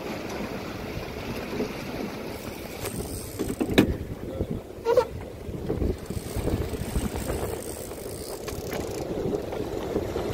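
Steady low rumble of a boat's Suzuki 150 outboard motors running at sea, with a sharp knock about four seconds in.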